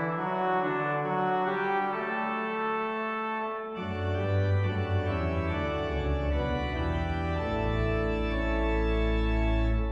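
Organ playing slow, sustained chords, with deep bass pedal notes coming in about four seconds in.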